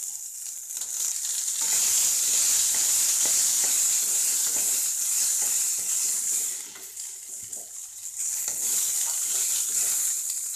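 Freshly added chopped green beans sizzling in hot oil in a kadai while a spatula stirs and scrapes them through the fried onions. The sizzle swells about a second in, dips for a moment past the middle, then picks up again.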